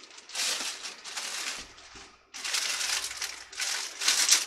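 Rustling and crinkling of packets being rummaged through, probably in search of dried kaffir lime leaves, in irregular bursts with a short pause about two seconds in and the loudest crinkle near the end.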